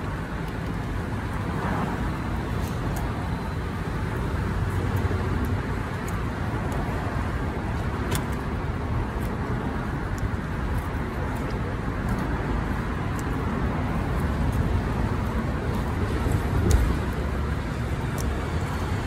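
Steady road-traffic rumble, with a few faint ticks scattered through it.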